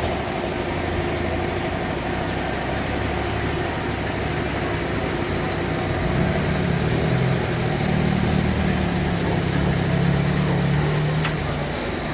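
Bandsaw sawmill running with steady machine noise; from about halfway a lower, louder drone comes in and drops away near the end.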